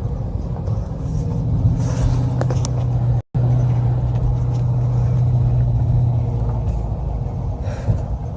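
Car engine running under power with a steady low drone while the car is driven through a snow drift, easing off near the end. The sound drops out completely for an instant about three seconds in.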